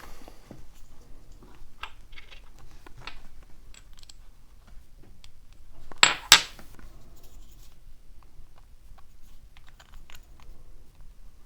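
Small metal lock-servicing tools and followers clicking and clinking as they are handled, with two sharper clacks close together about six seconds in.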